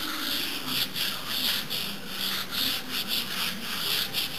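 A hand rubbing back and forth over a gritty quartz-sand textured wall coating, smearing wet ketchup, turmeric and mustard into it. It makes a scratchy, sandpaper-like sound in quick, even strokes, about two to three a second.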